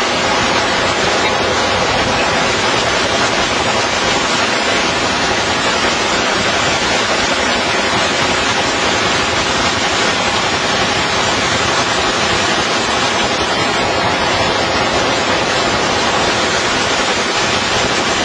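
Sustained full-auto machine-gun fire, the shots running together into a steady, unbroken roar with no pauses between bursts.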